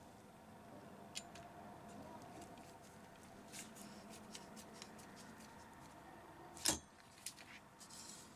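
Faint clicks and light scraping of a screwdriver driving a small screw into the plastic mounting lug of a laptop cooling fan, with a sharper click about two-thirds of the way through.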